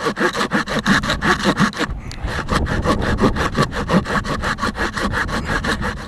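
Fiskars folding hand saw cutting through a tree limb, the blade rasping back and forth in quick, even strokes with a brief pause about two seconds in.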